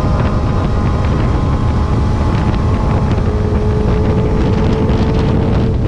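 Yamaha XJR400's air-cooled inline-four engine running steadily under way through a straight-pipe exhaust with a reverse-cone muffler, with wind rushing over the microphone.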